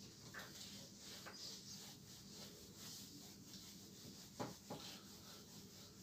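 Faint, repeated rubbing strokes of a whiteboard being wiped clean by hand, with two soft knocks a little past four seconds in.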